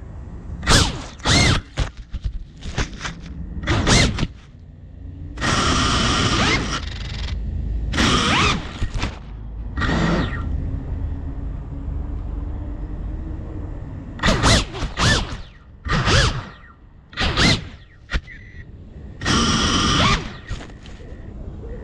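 FPV quadcopter motors spinning up in repeated short throttle bursts, each a brief whine that rises and falls, with a few longer rushing bursts about six seconds in and near the end.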